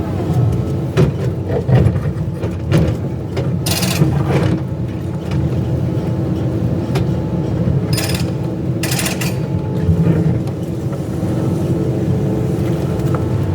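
Excavator diesel engine running steadily under work, with a few short harsh noisy bursts about four seconds in and twice around eight to nine seconds in, and scattered knocks early on.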